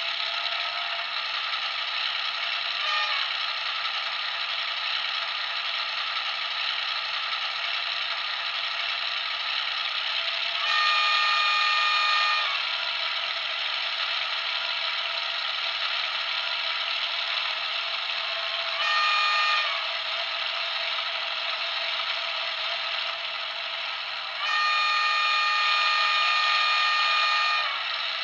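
Sampled EMD 6-645 diesel prime mover of a Y class locomotive running steadily, played through a model locomotive's LokSound V4.0 sound decoder speaker. Its multi-tone horn sounds four times over the engine: a brief toot, a longer blast, a short one and a long blast near the end.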